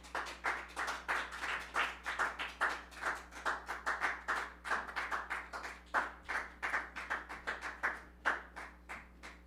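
A small audience applauding, with separate hand claps heard distinctly. The clapping thins out near the end.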